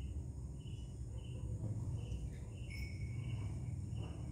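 A chirping insect repeating short high chirps, about three every two seconds, over a low steady hum. A brief thin whistle-like tone sounds about three seconds in.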